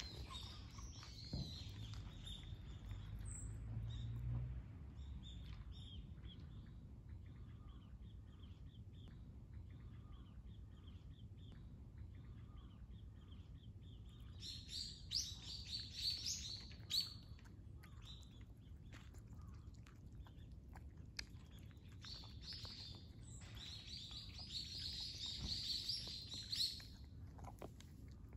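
Small birds chirping in short bursts about halfway through and again near the end, over faint clicks from two cats eating dry food from bowls.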